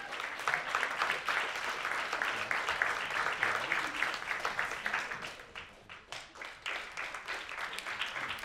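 Theatre audience applauding: dense clapping that thins out a little over halfway through and carries on more sparsely.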